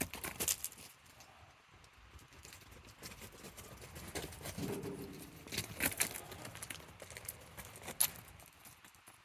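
Young goats' hooves clattering and knocking in quick irregular taps as they play, with a few sharper knocks, the loudest about eight seconds in.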